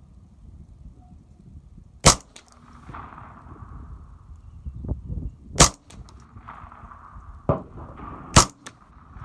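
.22 rifle firing: three sharp shots about three seconds apart, with fainter shots between them, over wind noise on the microphone.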